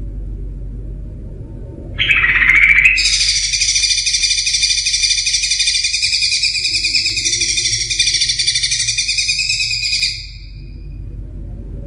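Cucak ijo (green leafbird) singing: a rough call about two seconds in, then one long, rapid, fluttering trill of about seven seconds that stops near the end. A steady low background rumble runs beneath it.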